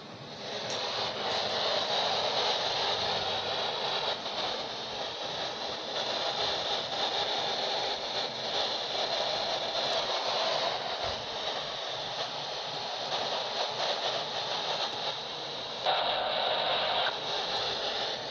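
Uniden CB radio receiver giving out a steady hiss of static as it is switched between channels, with no voices coming through. The static changes briefly about 16 seconds in.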